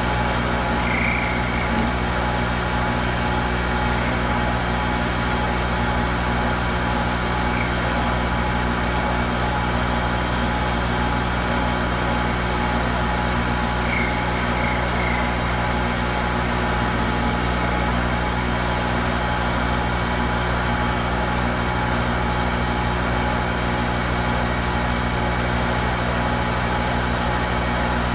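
A workshop machine's electric motor running steadily: a constant hum with several steady tones that does not change in level.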